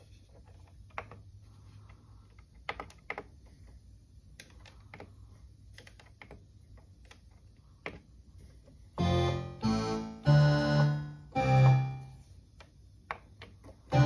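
Korg Poly-800 MkII synthesizer: a few soft clicks as its program buttons are pressed over a low hum, then about nine seconds in, four short loud chords played on it.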